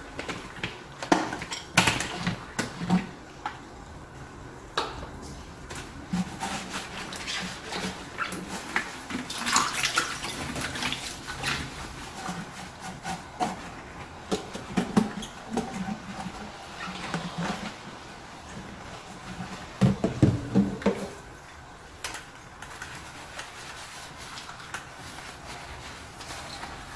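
Dishes being washed by hand: irregular clinks and knocks of dishware and utensils against each other, with water, and a burst of louder clattering about twenty seconds in.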